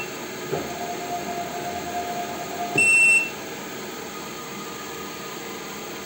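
WEISAN WM210V benchtop lathe running with its spindle turning steadily. About half a second in, a steady whine starts as the RC210E800 electronic leadscrew drives the carriage. The whine stops with a click near three seconds and is followed by a half-second high electronic beep from the leadscrew controller.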